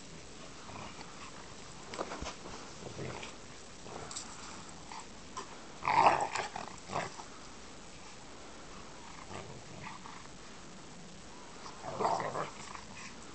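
A Czechoslovakian wolfdog and a young Caucasian shepherd dog play-fighting, growling in short bursts. The loudest burst comes about six seconds in, and another near the end.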